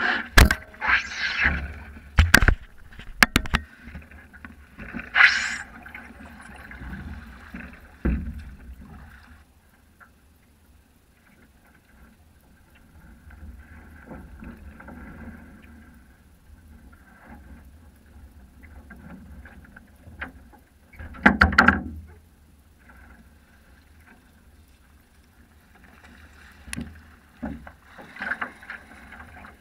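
Water lapping and slapping against a Sprint 15 catamaran's hull in shallow water, with sharp knocks and splashes as the boat is handled and its launching wheels and skeg protectors are taken off. The knocks and splashes bunch up in the first few seconds, with one more loud splash-like burst about two-thirds of the way through.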